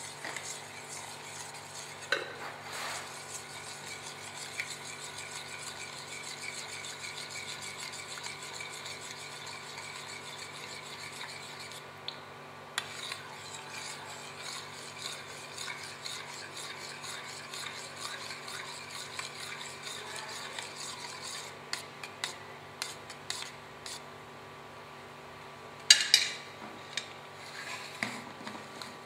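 Metal spoon stirring oat milk in a stainless steel bowl: a quick, even scrape and swish of the spoon against the bowl, with a short break about twelve seconds in. The stirring gives way to scattered clinks and one loud sharp knock of utensils on the steel worktop near the end.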